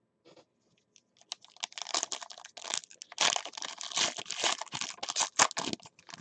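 A foil-wrapped 2011 Gridiron Gear trading-card pack being crinkled and torn open by hand: a dense run of crackling that starts about a second in and stops near the end.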